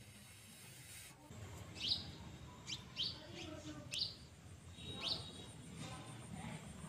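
Small bird chirping outdoors: a string of short, sharp chirps, roughly one a second, starting about a second in, over a low steady background rumble.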